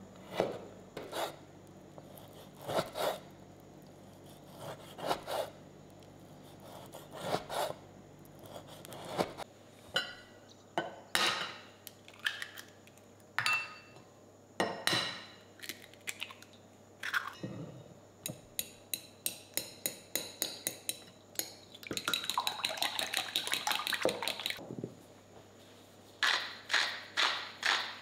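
A chef's knife slicing abalone meat on a wooden cutting board, one slow stroke at a time. After that come eggs tapped and cracked into a glass bowl, then a fork beating them quickly against the glass, a fast run of clicks. Near the end a wooden grinder is twisted over the bowl in a few regular grinding strokes.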